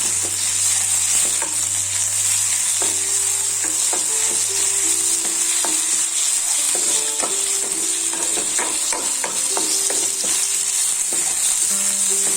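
Chopped onion and thoothuvalai leaves sizzling in hot sesame oil in a kadai as they are sautéed and stirred. The spatula clicks and scrapes against the pan, most often in the second half.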